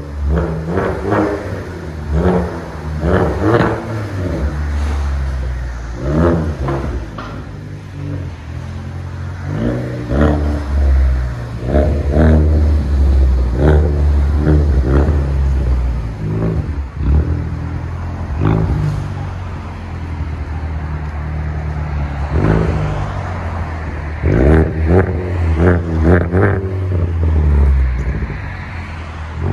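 A 2015 Ford Focus ST's turbocharged 2.0-litre four-cylinder exhaust, running through a Carven TR-series muffler with the rear muffler deleted. It is revved in about a dozen short blips and drops back to a low idle drone between them.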